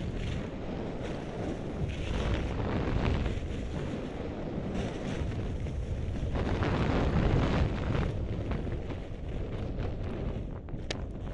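Wind buffeting an action camera's microphone at skiing speed, mixed with skis scraping over groomed snow, swelling and easing with each turn. The noise falls away near the end as the skier slows.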